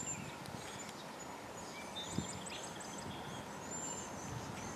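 Songbirds calling: short, high whistled notes and quick chirps, with a busy run of them past the middle, over a faint steady low rumble of outdoor background. A single soft tap about two seconds in.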